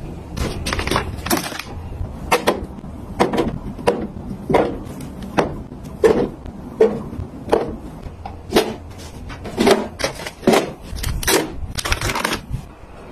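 Plastic drink bottles being set one after another onto the shelves of a plastic storage cart, and packaged snacks stocked into it: a string of sharp plastic knocks and clatters, more than one a second.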